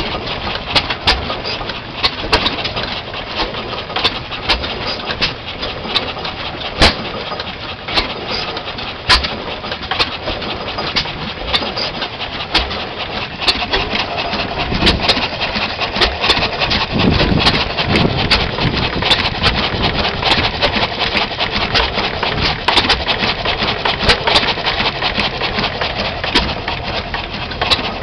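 A 2 hp Standard Pump & Engine Company hit-and-miss engine running, with irregular sharp exhaust beats and mechanical clicks. It is driving a water pump that pours a steady stream into a tank, heard as continuous splashing.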